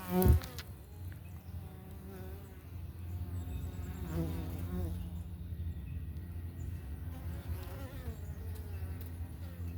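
Italian honey bees buzzing around their hive: a steady drone of many wings, with single bees flying close past and their buzz rising and falling in pitch. A short thump sounds just after the start.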